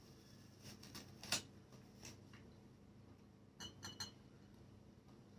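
Faint, scattered taps and clinks of glass oil bottles being handled, with a cluster of two or three short ringing clinks about two-thirds of the way in.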